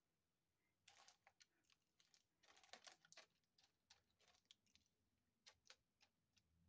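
Faint crinkling and clicking of small plastic zip bags of diamond-painting drills being handled, in short clusters, the busiest about a second in and around three seconds in.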